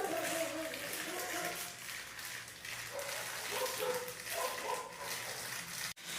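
A dog whining in several drawn-out, wavering whimpers with short pauses between them.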